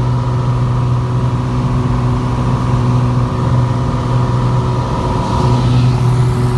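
Piper Saratoga PA32R-301T's turbocharged six-cylinder Lycoming engine and propeller running at takeoff power, heard from inside the cabin: a steady, loud drone with a strong low hum.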